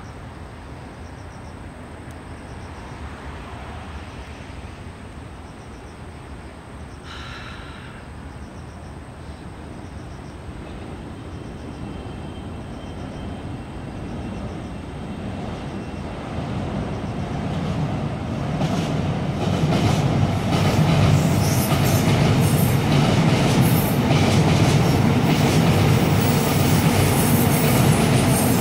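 Seoul Subway Line 7 electric train approaching across the Cheongdam Bridge, its rumble on the track growing steadily louder. In the last ten seconds it is loud, with rapid clicks and rattles from the wheels on the rails.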